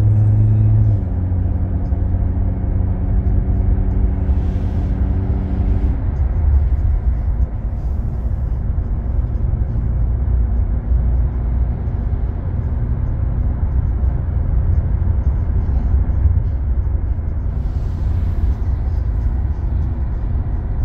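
Steady low rumble of road and engine noise inside a car's cabin at highway speed. A low humming tone sits over it for the first six seconds, changes pitch once, then stops.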